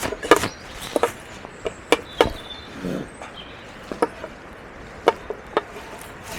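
Cutlery clicking and scraping against a plate during eating, as a series of scattered sharp taps, with a short falling hum of the voice about three seconds in.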